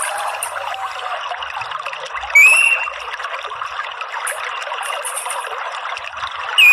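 Steady trickle of flowing water, with one short rising whistled note from an orange-headed thrush about two and a half seconds in. Faint high chirps recur throughout.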